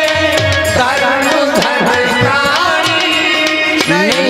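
A man singing a Hindi devotional katha song with held and sliding ornamented notes, accompanied by hand-drum beats and sharp percussion ticks.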